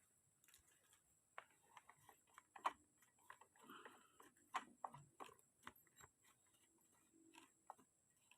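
Near silence broken by faint, irregular clicks and taps, a dozen or so spread unevenly, the sharpest about two and a half seconds in and again about four and a half seconds in.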